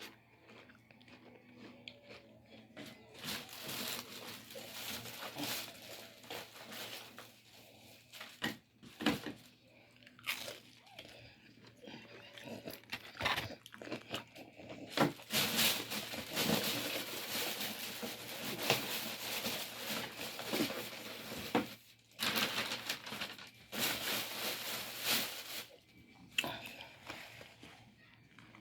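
Close-up eating of fried chicken: irregular crunching of crisp breading and chewing, in bursts with short pauses.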